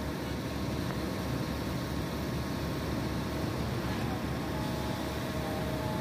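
Steady rumble of construction machinery on a concrete pour, with a faint whine held on a couple of pitches.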